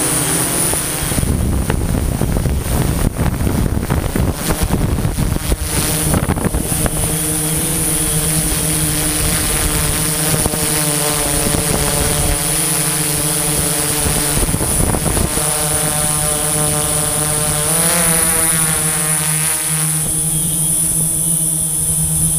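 Multirotor drone's motors and propellers buzzing steadily, with a high whine above them, heard from the drone itself. The pitch shifts as the throttle changes, rising and falling briefly near the end. Gusts of wind noise hit the microphone during the first several seconds.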